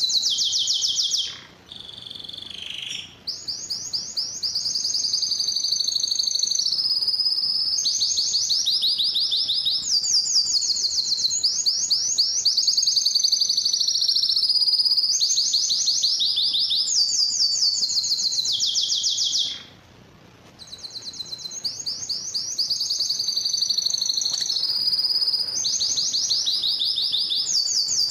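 Male canary singing its breeding song: long runs of fast, high-pitched trills and rolling phrases. There are two brief breaks, about a second and a half in and about twenty seconds in.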